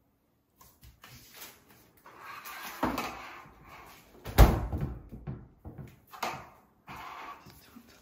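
Door of an LG Styler clothing-care cabinet being swung shut, closing with one sharp thump about halfway through. Handling noise comes before it and a few lighter knocks after.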